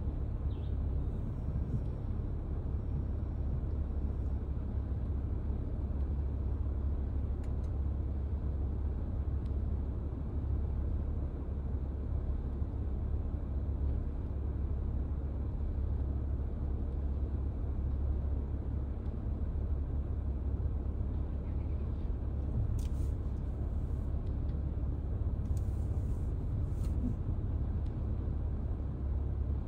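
Steady low rumble of a car heard from inside the cabin while it creeps in slow traffic, with a few faint clicks near the end.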